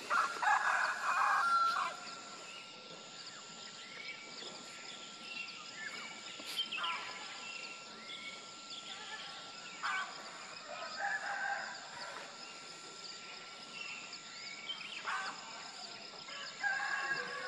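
Roosters crowing over and over, the loudest call right at the start and others farther off every few seconds, with smaller bird chirps in between. A thin steady high tone runs underneath.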